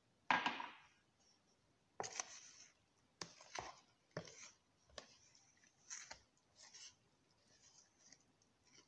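Wooden spoon stirring flour and liquid in a plastic bowl into a dough: a string of short, irregular scraping strokes against the bowl, roughly one a second, the first the loudest.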